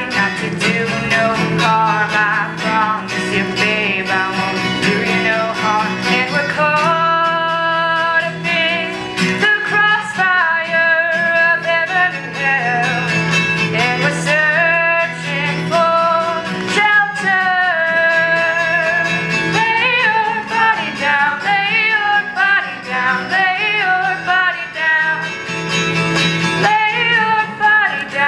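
A young woman singing a song to acoustic guitar accompaniment, her sustained notes wavering over the guitar's steady chords.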